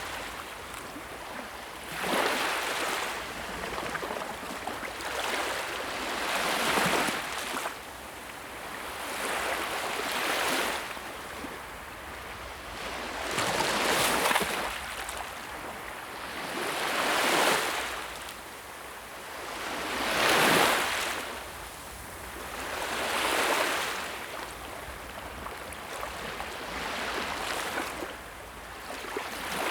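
Sea waves: a rush of surf that swells and fades about every three seconds as each wave breaks.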